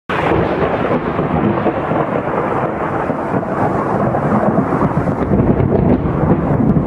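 Thunderstorm: steady rain with rumbling thunder.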